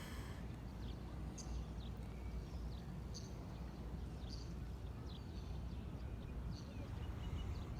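Birds calling in short, scattered chirps over a low, steady rumble.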